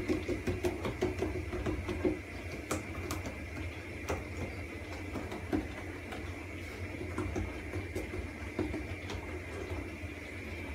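Hands patting and pressing soft pişi dough flat on a wooden board. There is a quick run of soft pats in the first two seconds, then scattered light taps, over a steady background hum.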